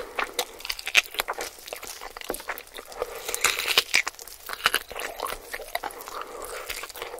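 Close-miked eating of spicy sauced chicken on the bone: wet chewing, lip smacking and meat tearing away from the bone, with a few crunchy bites. A longer wet sucking sound comes about three and a half seconds in as the bone goes between the lips.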